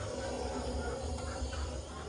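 Fire catching on the charcoal and wood inside a tandoor, a steady hissing with fine crackling as the flame takes hold.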